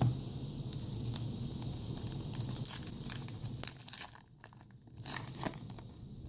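Foil trading-card pack wrapper crinkling and tearing in a run of sharp crackles, with a short lull about four seconds in.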